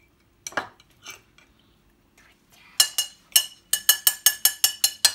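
Metal spoon clinking against a glass jam jar while scooping jam: a few light knocks, then from about three seconds in a quick run of sharp, ringing clinks, about four a second.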